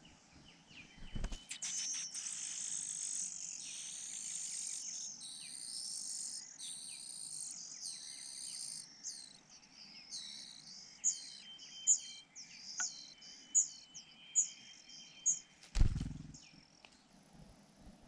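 Rufous-bellied niltava nestlings begging at a feeding visit. A dense, shrill, high-pitched chorus starts about a second and a half in, then thins after about nine seconds into separate short descending notes, about one and a half a second. A low thud comes near the end.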